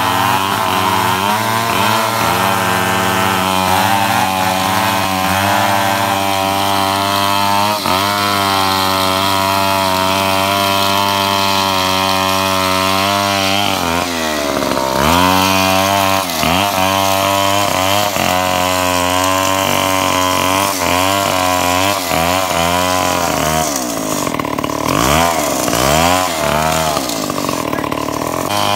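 Chainsaw running at high revs while cutting wood, its pitch dipping and climbing back several times as the chain loads up in the cut, most of all in the second half.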